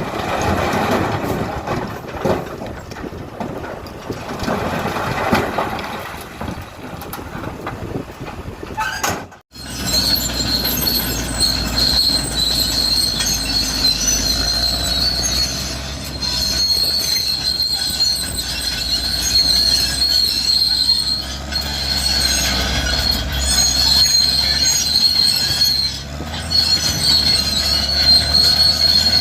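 Heavy earthmoving machinery running with a rushing noise. After a cut about nine seconds in, there is a steady high metallic squeal over a low engine rumble, typical of a crawler bulldozer's steel tracks squealing as they move.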